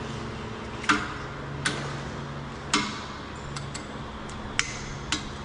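Sharp metallic clicks from a long click-type torque wrench with a 32 mm socket being pulled on the plug's stud bolts, five clicks at irregular intervals, over a steady low hum.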